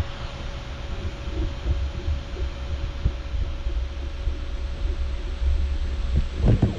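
Elegoo Neptune 3 3D printer running: a steady hum with a low rumble beneath it, and a short louder noise near the end.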